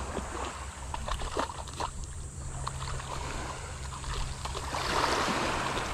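Footsteps crunching on a pebble beach, with scattered short clicks of stones, and small waves washing at the water's edge that swell about five seconds in. A low steady hum runs underneath.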